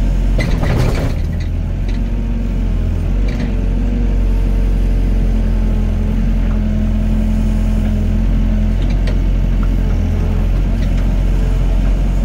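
Excavator's diesel engine running steadily under working load, with a whine from the hydraulics that holds and shifts a little in pitch, and a brief clatter about half a second in.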